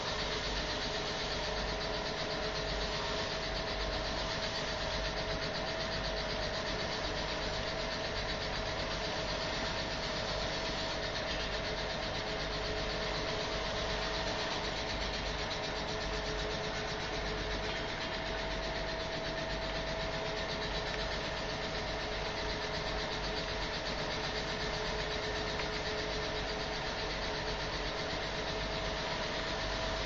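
Biomass gasifier charcoal machine running steadily, its motors and conveyor giving a constant hum with two steady tones over an even hiss as charcoal discharges.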